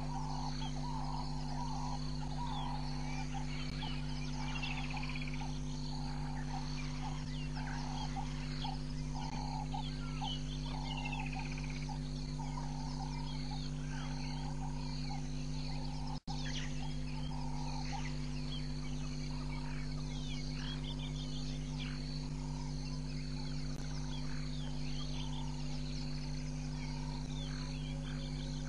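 Outdoor chorus of many birds and frogs calling at once, with a pulsing chorus in the middle range and many short chirps and whistles above it, over a steady low hum. All sound cuts out for an instant about halfway through.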